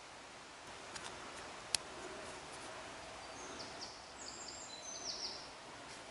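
A quick run of short, high chirping calls over a quiet woodland background, with a few sharp clicks, the loudest one single snap, in the first two seconds.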